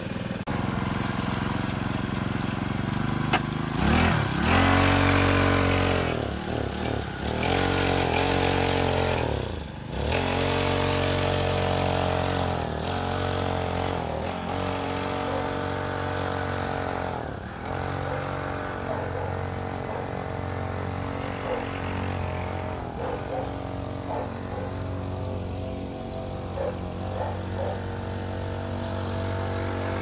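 Pocket bike's small two-stroke engine revving up and down as it is ridden. The pitch rises and falls several times in the first ten seconds, then the engine runs more steadily. It is running on a newly fitted replacement carburetor that still needs adjusting.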